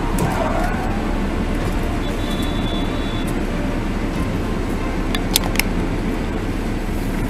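Steady low rumble of engine and road noise heard from inside a car through a dashcam, with a few sharp clicks a little after five seconds in.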